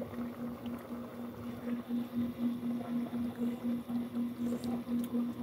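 A steady low hum that pulses about four times a second.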